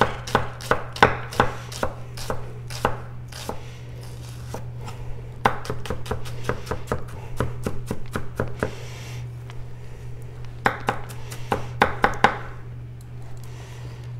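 A 240mm kiritsuke gyuto knife dicing an onion on a cutting board: sharp strikes about three a second, in three runs with short pauses between.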